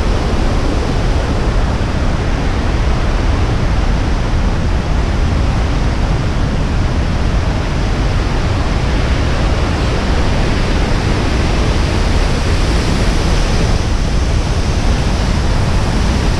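Waterfall's loud, steady rush of falling water, a constant roar with no breaks.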